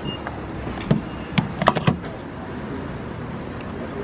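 A few sharp clicks and knocks, bunched between about one and two seconds in, from a gas pump nozzle being handled and pushed into the car's filler neck, over a steady background hum.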